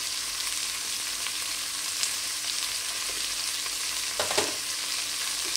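Chicken bones and sliced onions sizzling steadily in olive oil in a stainless steel pot. A brief knock about four seconds in.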